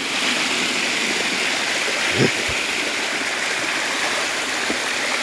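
Stream water rushing steadily as it spills down a small cascade over rocks, with one brief knock about two seconds in.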